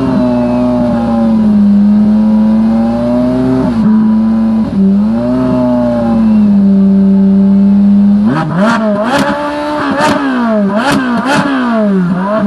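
Ferrari engines revving while standing: held at steady high revs for about eight seconds with two short blips, then a run of about six quick throttle blips, each rising and falling sharply, with sharp cracks at the peaks.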